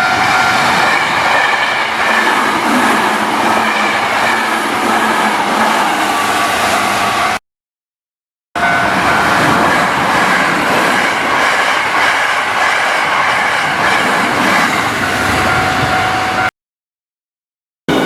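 A train passing close by: a steady, loud running noise with several held tones over it. It comes in two stretches, each cut off abruptly by about a second of total silence where the recording was edited.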